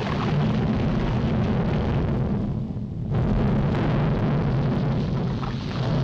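Cartoon sound effect of an erupting volcano: a continuous, heavy rumbling with explosive blasts. It eases briefly about two and a half seconds in, then comes back.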